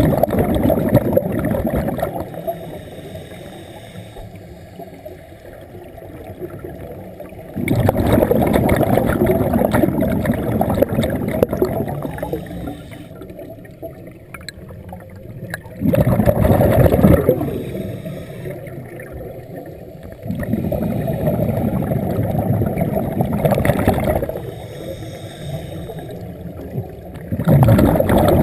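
A scuba diver breathing through a regulator underwater: about five long exhalations, each a rush of bubbling lasting a few seconds, with quieter inhalations between.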